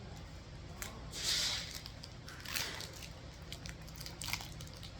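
Slime being squished by hand, with a wet squelch about a second in and another a little after two seconds, among small clicks.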